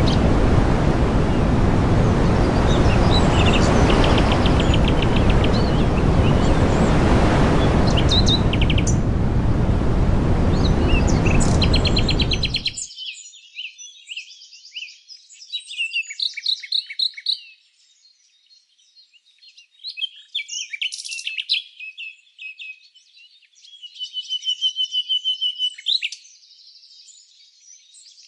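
Small birds chirping and trilling. For the first half a loud steady rushing noise lies under them; it cuts off suddenly. After that the calls are heard alone, with a rapid trill of evenly spaced notes near the end.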